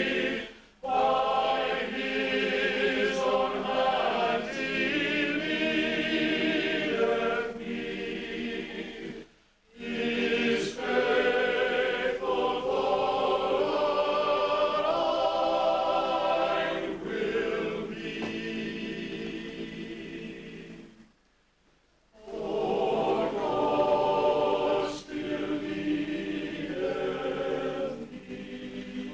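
Choir of men's and women's voices singing a hymn in parts, phrase after phrase, breaking off briefly between phrases about a third of the way in and again for about a second past two-thirds through.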